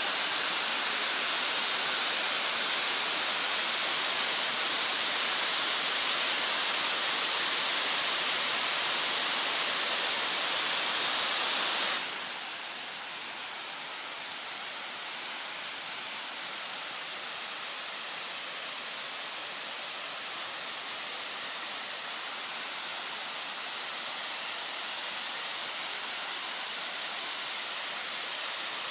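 Steady rushing of the Kravica waterfalls, water pouring over a wide cascade. About twelve seconds in it drops suddenly to a quieter, duller rush.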